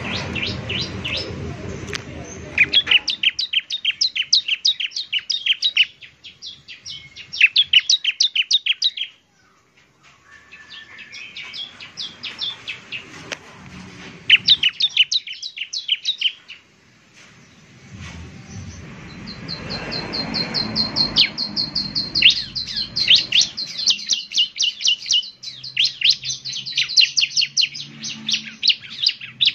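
Bar-winged prinia (ciblek) singing: fast runs of sharp, high chirps in trilled bursts a few seconds long, with short pauses between them.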